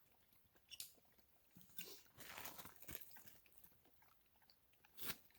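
A dog lapping water from a bowl, faint and uneven.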